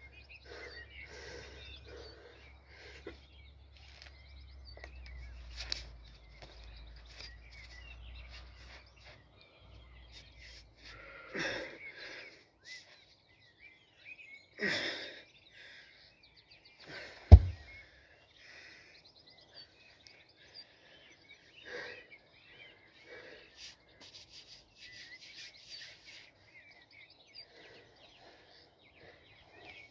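A 70 kg natural lifting stone dropped onto grass with a single heavy thud a little past the middle, after two forceful exhalations from the lifter as he strains with it. Birds chirp faintly throughout.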